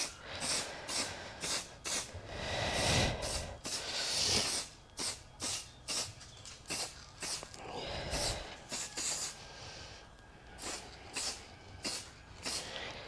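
Aerosol spray-paint can hissing in a string of short bursts, with one longer spray about two to four seconds in.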